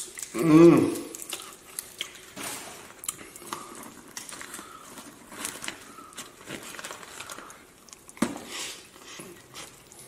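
Close-miked eating sounds: a paper spread packet squeezed over sauced fries, then a plastic fork scraping and lifting fries from a paper tray, with light crinkling, small clicks and wet squishing, and a bite near the end. A brief vocal sound, the loudest thing, comes about half a second in.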